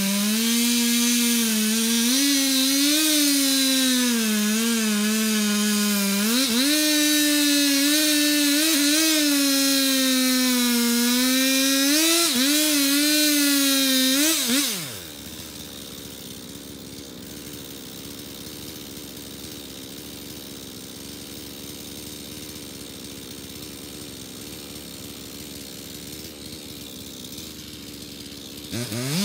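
Two-stroke chainsaw running under load, its pitch rising and dipping as the operator works the throttle through the cut. About 15 seconds in it winds down and stops. It starts up again and revs briefly right at the end.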